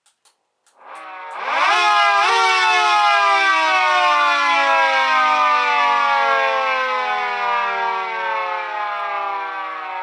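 Mini 2T22A dual-tone siren with a three-phase motor giving a short growl: after a couple of faint clicks it spins up quickly, its howl rising to full pitch about two seconds in, then slowly winds down, falling in pitch and fading.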